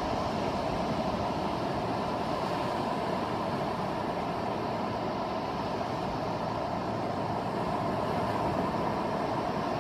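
Steady wash of ocean surf on a beach, an even roar with no distinct breaks.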